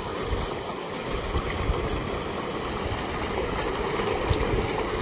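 Water gushing from a 5-inch tubewell discharge pipe and splashing into a concrete tank: a steady rush of falling water from a 10 HP solar-powered pump on its first test run.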